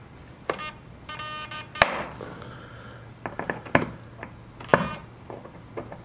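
Small sharp metal clicks and taps from side cutters gripping and working a steel pin into a servo's mounting frame, the loudest about two seconds in. A brief buzzing tone sounds about a second in.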